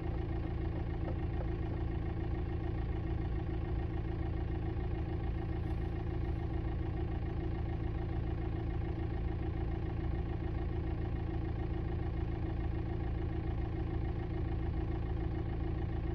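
2006 VW Jetta TDI diesel engine idling steadily, with a fast fine clatter, together with the knocking and buzzing from behind the passenger-side dashboard that the car is being recorded for.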